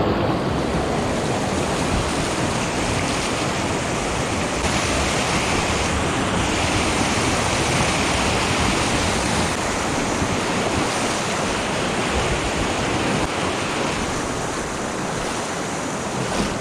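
White water of a shallow, rocky river riffle rushing and splashing around a kayak's hull as it drifts through: a steady, loud rush that eases a little near the end as the water calms.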